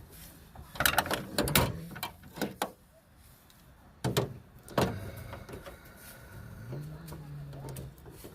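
Scattered clicks and knocks of hands and tools working on a car's third brake light and its plastic mounting, in clusters about a second in and again around four to five seconds, with a short low hum near the end.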